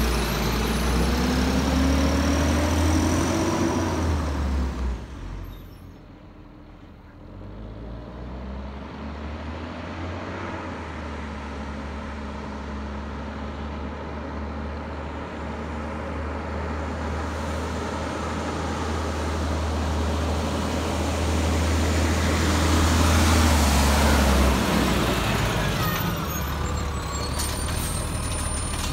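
Automated side-loader garbage truck's diesel engine revving up as the truck pulls away. After a short lull, a garbage truck's engine comes in faint, grows steadily louder as the truck approaches, then winds down as it slows to a stop near the end.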